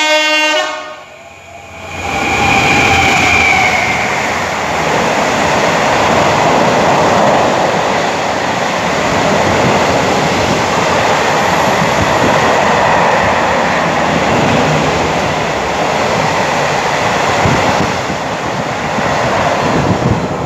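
A Class 66 diesel freight locomotive sounds a short horn blast at the very start. From about two seconds in, a container freight train runs close past, a steady loud rumble and clatter of wagons on the rails.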